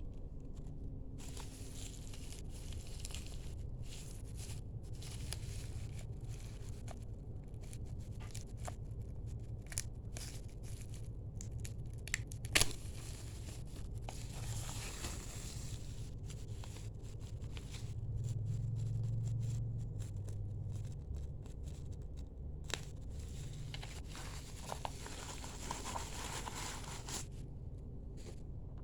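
Plastic packaging crinkling and rustling as it is handled, with scattered small clicks and one sharp click about twelve seconds in, over a steady low hum.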